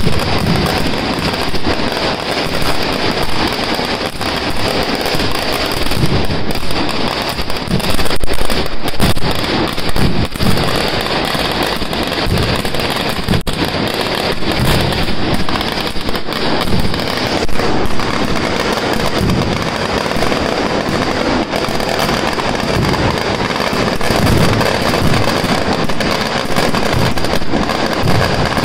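Fireworks and firecrackers going off in rapid succession: a dense, continuous crackle with heavier bangs mixed in.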